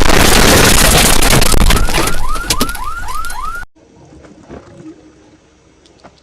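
Heavily distorted, ear-splitting remix of a hedgehog's sneeze: a harsh wall of noise that ends in a quick run of short rising chirps and cuts off suddenly about three and a half seconds in, leaving faint background.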